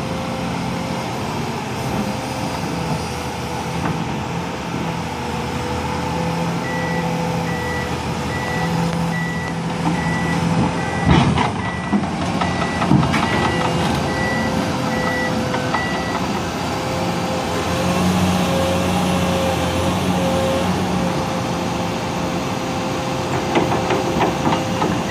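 Komatsu PC210LC excavator running with a steady whine as it tracks along a lowboy trailer deck; its travel alarm beeps about once a second for several seconds in the middle. Steel tracks clank on the deck, with a few loud knocks about halfway through and again near the end.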